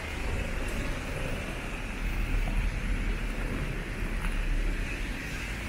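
Street traffic ambience: road vehicles running past, with a low rumble that swells about two seconds in and eases off near the end.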